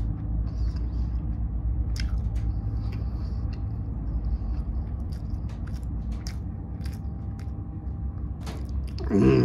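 A person chewing the last of a taco close to the phone, with faint mouth clicks now and then over a steady low rumble.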